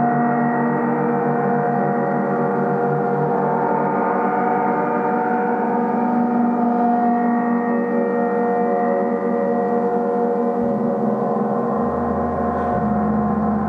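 Gong ringing in a sustained, steady wash of many overlapping tones with no distinct strikes. A deeper low hum comes in near the end.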